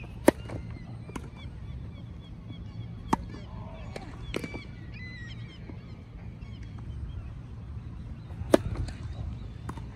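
Tennis ball struck hard by racket strings: a serve, a few rally shots exchanged across a grass court, then another serve near the end, each a sharp pop. Short high bird calls sound in between.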